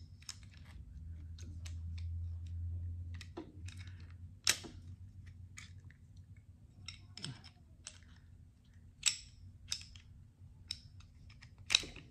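Scattered light clicks and knocks of pistol parts being handled as the guide rod is fitted back into the slide of a Beretta APX Centurion during reassembly, with a sharper click about four and a half seconds in.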